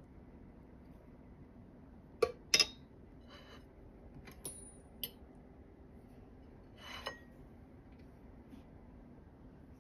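Metal cutlery clinking against a ceramic plate a few times. The two loudest clinks come close together about two seconds in, followed by a few lighter clinks and a short scrape.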